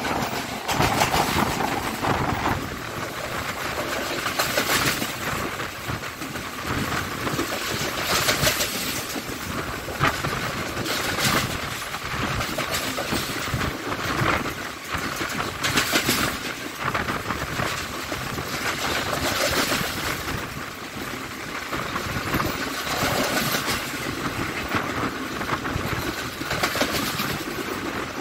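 Express train's wheels running fast over the track, heard from an open carriage window: a steady rumble and clatter on the rails, with louder surges every few seconds.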